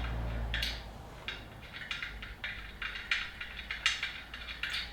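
Light metal clicking and scraping of hand work on a motorcycle wheel's rim lock fittings: a quick, irregular series of small sharp clicks, like a nut being run on by hand.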